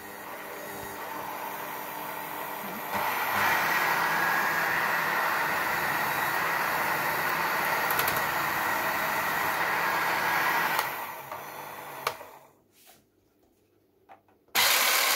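Electric hand mixer motor running with the beaters free in the air, under no load: a steady whir that steps up louder about three seconds in and dies away to near silence around twelve seconds in. Just before the end a mixer starts again at full loudness.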